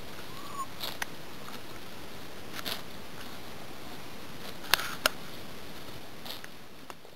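Horse grazing close by: grass being torn and chewed, heard as a few short, sharp crunches, the two loudest close together about two-thirds of the way in, over a steady hiss. The sound fades toward the end.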